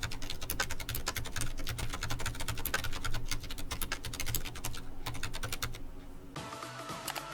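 Fast typing on a Ducky ONE 2 full-size mechanical keyboard with spray-lubed Cherry MX Silent Red linear switches: a rapid run of key presses that stops about six seconds in, when music begins.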